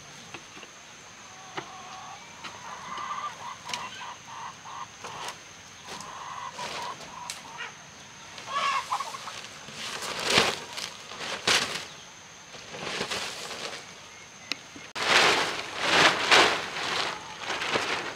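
Chickens clucking in short repeated calls, then a series of loud, rough, noisy strokes in the second half. A faint steady high tone runs underneath.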